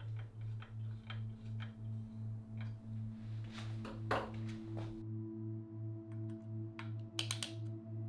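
Ambient background music: a low tone pulsing about three times a second under held notes. Over it come scattered light clicks and taps from a hand tool and bike parts being handled, with a brief rush of noise around the middle and a quick cluster of clicks near the end.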